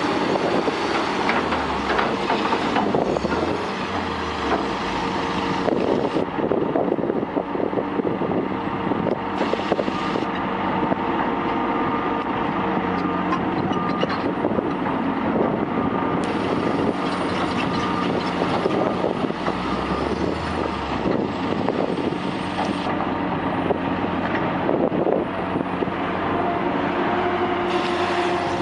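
Heavy diesel machinery working: a large tracked excavator and crawler dozers running steadily, with frequent clanking of tracks and metal. The sound changes abruptly several times.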